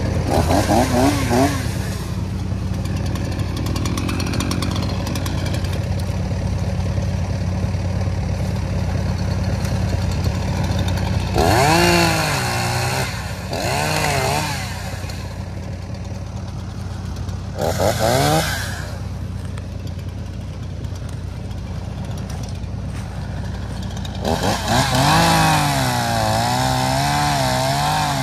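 Two-stroke chainsaw revved briefly several times, then held at speed and cutting into a fallen log near the end, its pitch wavering as the chain loads up in the wood. A steady low engine hum runs underneath.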